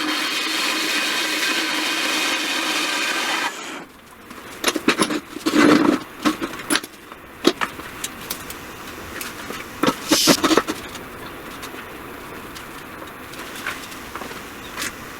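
A power tool, likely a saw, running steadily and then shutting off about three and a half seconds in. After it, scattered knocks and clanks follow, with two louder clusters, of pieces being handled in the shop.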